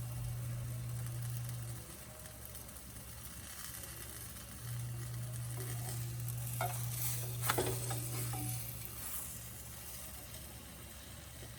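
Pan pie dough sizzling as it fries in oil and ghee in a skillet over high heat, with a few clinks and scrapes of a utensil against the pan about halfway through. A steady low hum in the background drops out and comes back twice.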